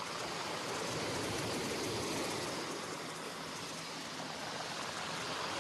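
Steady, even hiss of small waves washing onto a shingle beach.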